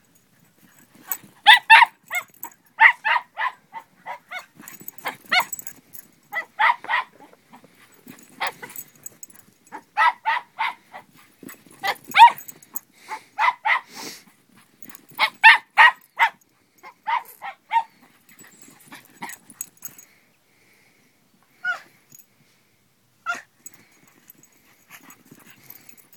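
Dog barking in quick runs of several barks, again and again for most of the time, then two single barks near the end.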